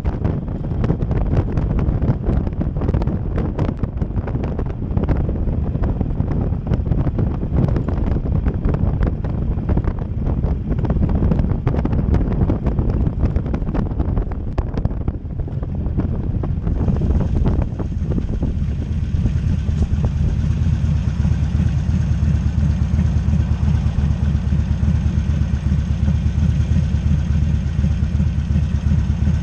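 Wind buffeting the microphone over the 2009 Harley-Davidson Sportster Custom's V-twin engine running while riding. About 16 seconds in, the wind noise drops away and the engine settles into a steady, even idle as the bike stops.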